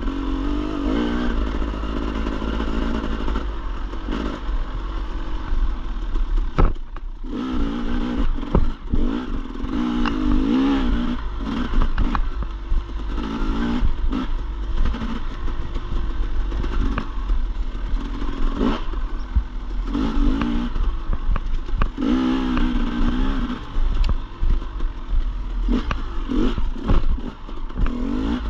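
Off-road dirt bike engine revving up and down over and over as it is ridden, with frequent clattering knocks and a steady low rumble underneath.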